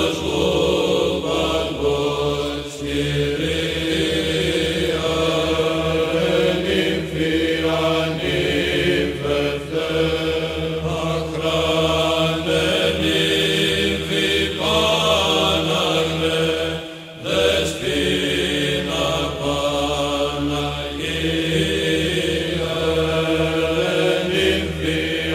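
Chanted vocal music over a steady held drone note, in the manner of Orthodox church chant, briefly breaking off about two-thirds of the way through.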